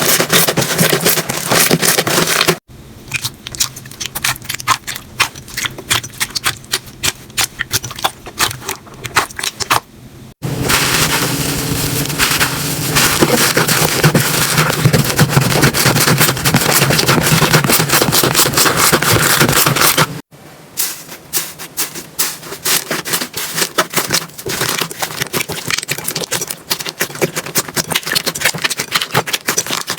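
Slime being squeezed and poked, giving rapid, irregular crackling and popping clicks. It comes in several short clips cut together, and the middle one is louder and denser.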